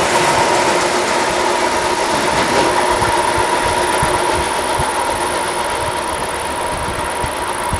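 Freight train of tank and covered wagons rolling past and away along the line, its wheel noise slowly fading, with a steady high whine over it.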